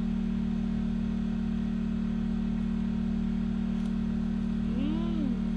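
Portable generator running with a steady, unchanging hum. A short voice-like sound glides up and down near the end.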